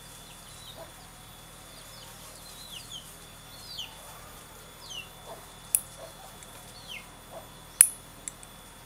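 A small hand digging tool striking and scraping the soil, with a couple of sharp knocks in the second half. Birds chirp throughout with short falling calls.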